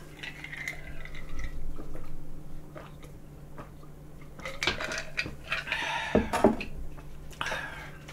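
Drinking iced cola from a glass: a few quiet swallows and ice clinking against the glass, mostly in the second half.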